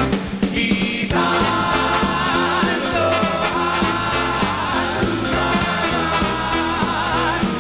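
Male a cappella group of five singing in close harmony, with a sung bass line stepping underneath and a steady beat. The upper voices drop out for about the first second, then come back in together.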